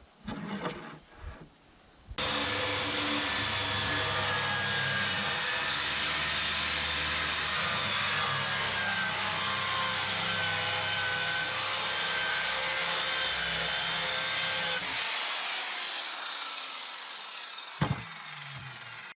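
Power tool working on a log: a few knocks, then the tool starts suddenly and runs steadily for about 13 seconds before it is switched off and winds down. A sharp click comes near the end.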